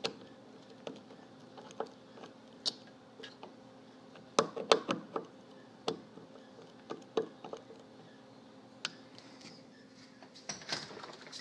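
Scattered light clicks and knocks of hand work on a door closer, with a small cluster about four to five seconds in, as its speed valves are being reset; a faint steady hum underneath.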